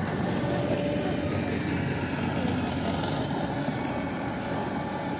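Steady low rumbling noise with no distinct events, heaviest in the low range.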